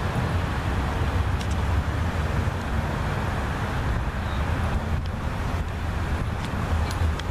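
Steady road-traffic noise: a continuous low rumble with a hiss of tyres over it.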